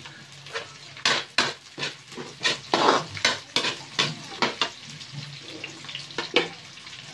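Metal spatula scraping and knocking against a wok in quick, irregular strokes as sliced onions are stirred into sautéing garlic and ginger, over a steady frying sizzle. The stirring starts about a second in and stops near the end.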